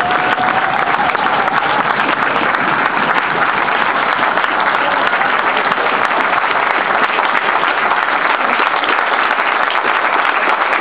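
An audience applauding, a steady, dense clapping.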